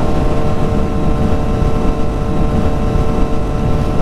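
Kawasaki Z900's inline-four engine running at a steady pitch while cruising, with wind rumbling over the microphone.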